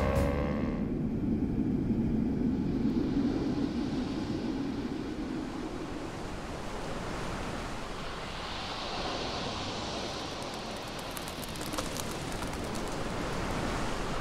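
Sea surf breaking and washing up a sandy beach: a steady rushing noise that swells around four seconds in and again around nine seconds.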